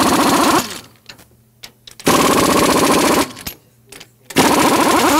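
Pneumatic impact wrench hammering in three bursts of about a second each, undoing the head bolts of a high-pressure pump, with a short falling whine as the tool winds down after each burst.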